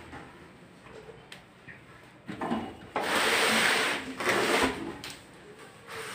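A single-door refrigerator being shifted by hand on its stand: a scraping rush lasting about a second near the middle, with lighter knocks and scrapes before and after it.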